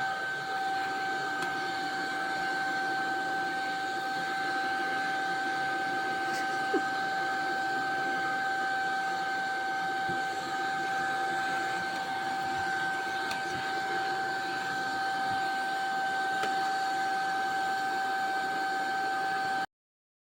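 Vacuum cleaner running steadily, a constant high whine over a hiss, cutting off suddenly near the end.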